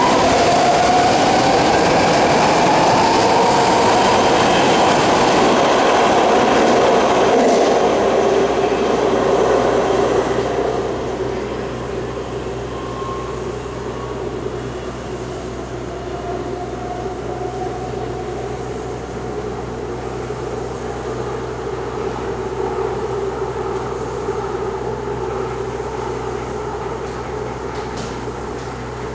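BART train pulling out of the station, its motors whining with a pitch that climbs and then sinks as it draws away, fading over about the first ten seconds. After that, a quieter steady hum.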